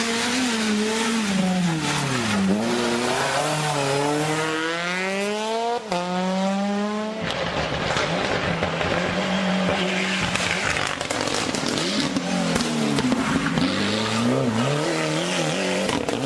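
Rally car engines at full race. First the Citroën C2 R2 Max's revs fall as it brakes into the hairpin, then climb steeply under hard acceleration with a gear change. Later the Ford Escort Cosworth's engine dips and climbs again in the same way as it comes through and accelerates away.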